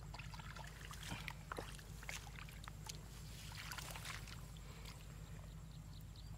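Faint small splashes and squelches of hands feeling through shallow muddy water among grass, scattered irregularly, over a steady low hum.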